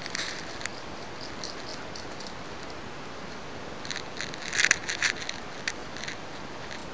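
Handling noise from a small handheld camera: a steady hiss with scattered rustles and clicks as it is moved about, and a quick cluster of sharper clicks about four to five seconds in.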